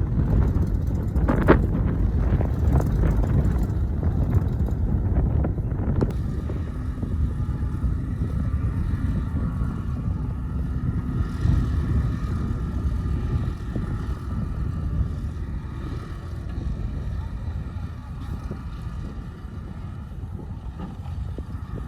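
Heavy diesel earthmoving machinery running steadily, with a sharp metallic clank about a second and a half in and a fainter one a few seconds later.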